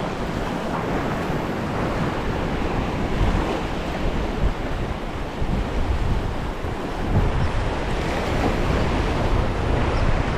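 Ocean surf washing against the shore, with wind buffeting the microphone.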